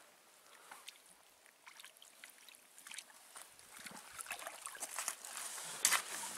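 A search magnet on a white rope being hauled out of shallow lake water onto a gravel and leaf-litter bank. Faint water trickling and scraping give way over the last few seconds to steadier rustling and scraping, with a sharp click about six seconds in.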